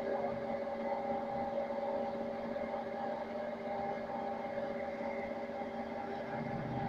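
Tailings dewatering vibrating screen and its electric motors running: a steady mechanical hum with several held tones over a rushing noise.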